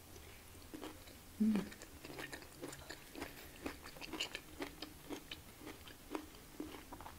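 Close-miked chewing of soft cooked cauliflower and mixed vegetables, with irregular wet mouth clicks and smacks several times a second. A brief hummed "mm" comes about one and a half seconds in.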